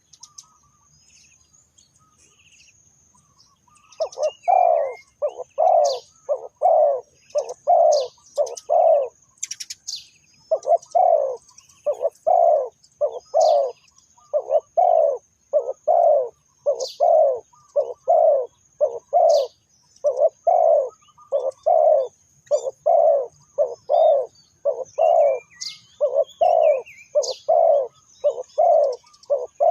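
Spotted dove cooing in long runs of evenly spaced low notes, starting about four seconds in, pausing briefly, then continuing steadily. Faint high chirps of small birds and a steady thin high-pitched tone sit in the background.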